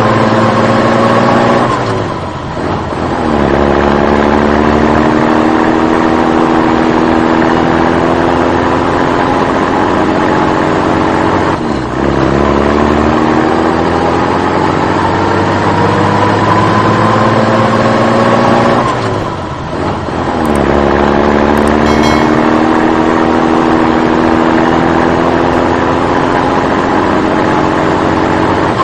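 Vehicle engine accelerating. Its pitch rises steadily for several seconds, then drops back about three times, like a vehicle shifting up through gears.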